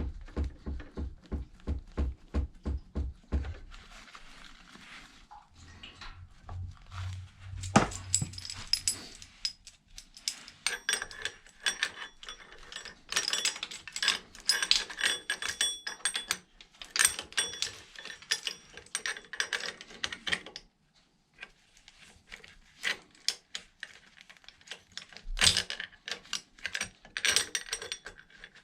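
Metal tools clicking and clinking: a gear puller being fitted to the motorcycle's starter gear and its bolt worked with a wrench. It opens with a regular run of clicks, about three a second, and has one sharp knock about eight seconds in. Bursts of ringing metallic clinks follow.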